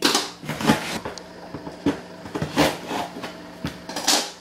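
A cardboard shipping box being handled and its packing tape pulled off: a series of irregular rasps and scrapes, the loudest right at the start.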